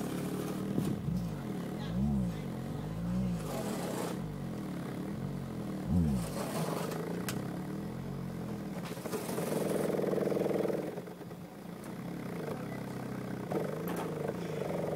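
A bare Stereo Integrity HT 15-inch subwoofer driver, unmounted in free air, playing low bass tones that glide up and down in pitch. About two-thirds through and again near the end it holds a steadier, buzzier tone.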